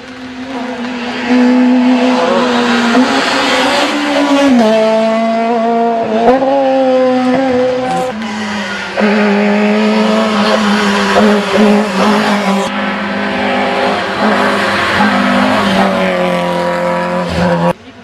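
Rally car engines running at high revs through a corner, the pitch stepping with gear changes, with tyres squealing. The sound cuts abruptly a couple of times.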